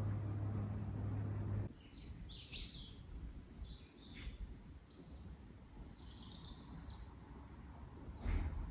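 A steady low hum stops abruptly in the first two seconds. Small birds then chirp in short, high calls over quiet outdoor ambience, and a single thump comes near the end.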